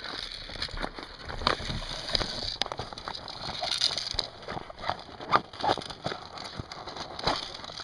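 Grass and leaves rustling and brushing against a gun-mounted camera, with irregular clicks and knocks from handling.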